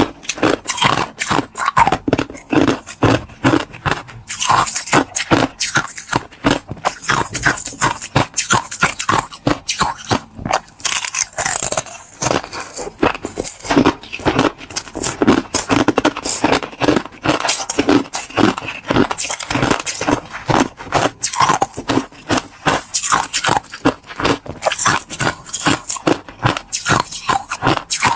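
Clear ice being bitten and chewed close to the microphone: a dense, uneven run of crisp cracks and crunches with wet mouth sounds.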